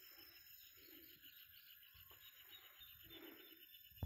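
Faint outdoor ambience: insects chirping in a fast, even pulse, with a few low bird coos. A single sharp click right at the end.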